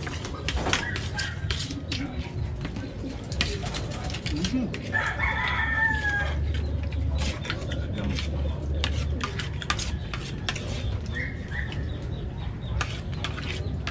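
A rooster crows once, about five seconds in, over scattered clicks and taps of people picking apart crab and prawns at a table.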